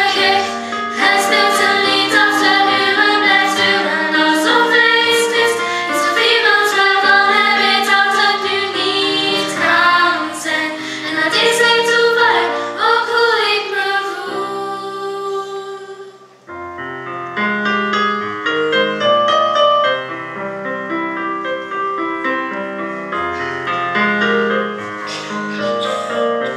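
Young female voices singing a song over instrumental accompaniment, which breaks off suddenly about two-thirds of the way through; a piano then plays on its own.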